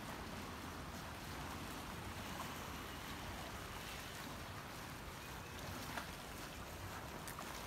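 Gentle sea waves washing against granite boulders along the shoreline, a steady outdoor hiss of water and breeze, with a couple of faint clicks.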